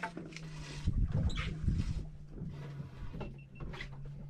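Boat's engines idling with a steady low hum, under gusts of wind rumble and a few knocks about a second or two in.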